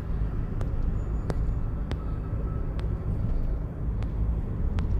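Car driving: a steady low rumble, with light sharp ticks every half second to second.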